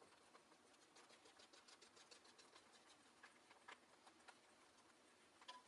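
Faint crackling sizzle of a thin egg sheet frying in a nonstick pan, with a few light clicks as chopsticks work around the pan's edge.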